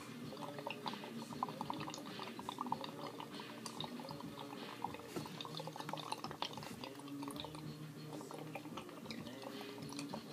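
Water bubbling in a glass dab rig as the smoke is drawn through it: a rapid run of small pops and gurgles, thickest in the first few seconds, then sparser.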